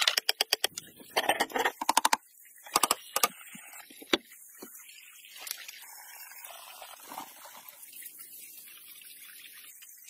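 Quick run of sharp knocks and scrapes from a hand tool working a wooden plank, several strokes a second for about two seconds, then a few more near three seconds and a single knock about four seconds in. After that only a faint, steady outdoor hiss.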